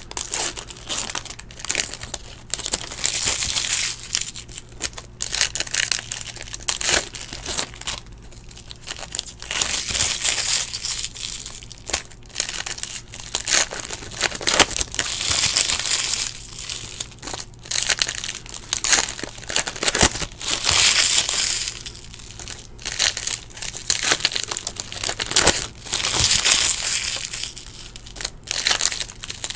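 Foil wrappers of Bowman Chrome baseball card packs being torn open and crinkled by hand, in repeated bursts of crackly rustling.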